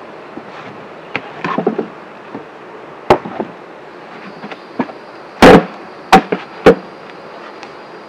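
Wooden beehive boxes knocking as they are handled and set down: a knock about three seconds in, the loudest just after five seconds, then two sharp knocks close together. Honeybees hum steadily under the knocks.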